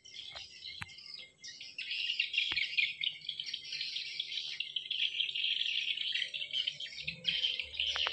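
Many birds chirping at once in a dense, continuous high chatter that swells up about a second and a half in, with a few faint clicks underneath.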